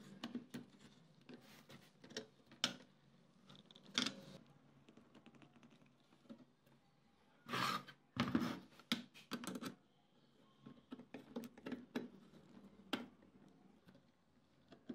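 Socket ratchet clicking in short irregular runs as it tightens the bolts holding an exhaust fan's motor housing to its metal mounting bracket, with a few metal clinks and two louder rattling bursts a little past halfway.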